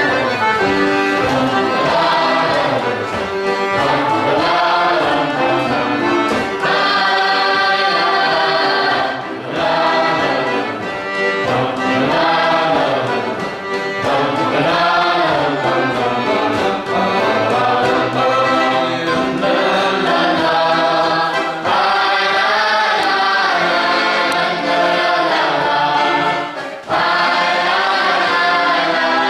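Boys' choir singing a march with accordion accompaniment, in phrases with short breaks between them.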